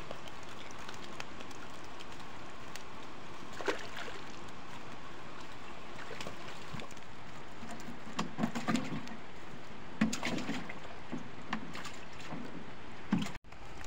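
Steady rush of flowing water, with a few short splashes and knocks as landing nets are worked through shallow, muddy pond water.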